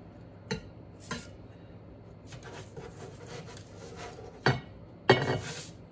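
A chef's knife knocking and scraping against a china plate as strips of puff-pastry tart are slid onto it: two light clicks in the first second, faint crackling of the crisp crust being cut in between, then two louder clinks near the end, the last with a short ring.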